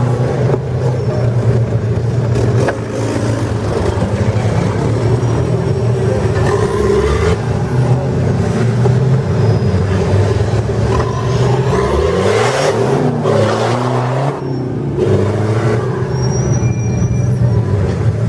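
Off-road trial 4x4 vehicle's engine running loud and being revved up and down repeatedly, with quick rising and falling pitch swings about twelve seconds in.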